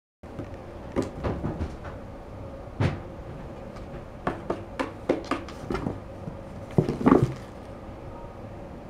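Cardboard box knocking and scraping as two cats climb and shift about inside it: an irregular string of thumps and rustles, loudest in a cluster about seven seconds in.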